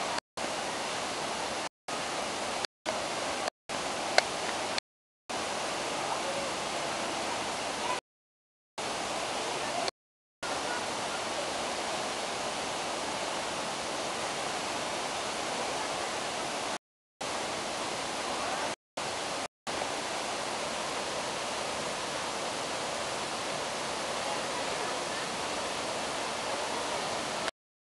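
Waterfall plunging down a rock face into a pool: a steady rushing of falling water. The sound cuts out to silence several times for a fraction of a second to about a second.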